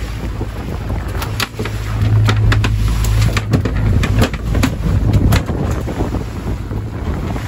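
Mercury outboard motor running with the boat underway, wind buffeting the microphone. Between about one and five seconds in come a run of sharp knocks and slaps as a mahi-mahi is hauled over the gunwale and thrashes in the cockpit.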